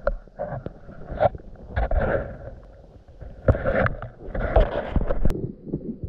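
Wind gusting over the camera's microphone in uneven rushes, with knocks and bumps from the camera being moved and handled, and a sharp click about five seconds in.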